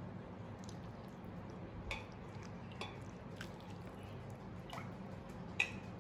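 Sauce being ladled over a plate of fried rice vermicelli: faint drips and a few short clicks, the sharpest near the end, over a steady low hum.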